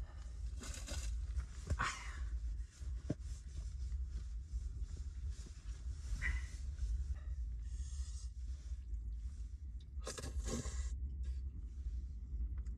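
Steady low wind rumble, with a few short rustles and small clicks scattered through it.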